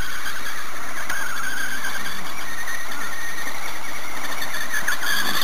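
Tamiya Mad Bull RC buggy's electric motor whining as it drives over grass, the pitch wavering up and down with the throttle, over a steady hiss.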